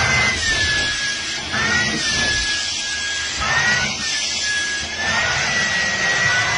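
Vacuum cleaner running with its hose nozzle on a cat's fur: a steady rushing hiss with a motor whine that rises and falls in pitch several times.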